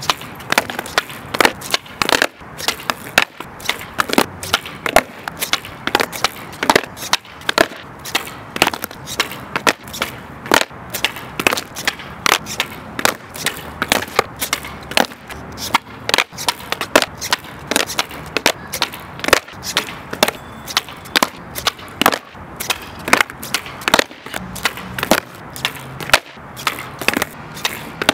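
Skateboard being popped and flipped over and over in 360 flip attempts: the tail snapping on the asphalt, and the wooden deck and wheels slapping and clattering down. There are many sharp cracks, often less than a second apart.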